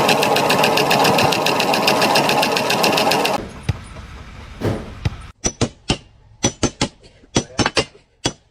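A rapidly pulsing machine, about ten beats a second, running loudly, then cutting off abruptly about three and a half seconds in; from about five seconds on comes a series of sharp, irregular clicks and knocks.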